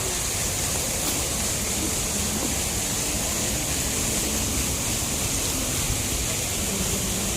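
Steady, even rushing noise of street crowd and traffic ambience, with no single sound standing out.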